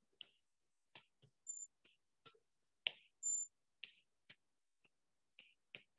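A stylus tapping and clicking on a tablet's glass screen while handwriting maths, faint, irregular taps roughly every half second. Two brief high-pitched squeaks come about one and a half and three seconds in, the second being the loudest sound.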